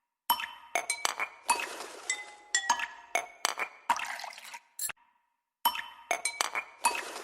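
Background music made of bright, clinking, glassy struck notes with short ringing tones. The pattern repeats in a loop of about five seconds, with a brief dead stop about five seconds in.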